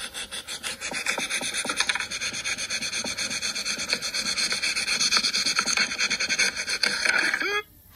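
An orange being scraped rapidly back and forth against a flat metal surface, a quick rhythmic rasping, heard through a tablet's speaker. The rasping cuts off abruptly near the end.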